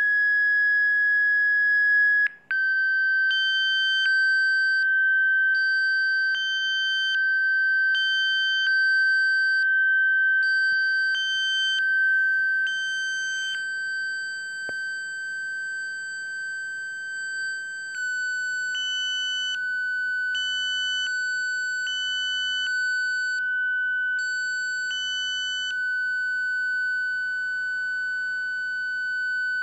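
Electronically generated pure sine tones of a Rife frequency sequence. A steady high tone breaks off briefly about two seconds in and returns slightly lower, then steps down a little again about two-thirds of the way through. A higher tone switches on and off in short stretches over it.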